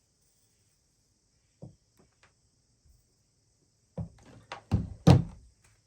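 A few knocks and thuds on a table as an iron and a damp pressing cloth are handled: one faint knock, then a quick cluster of thumps near the end, the last one the loudest.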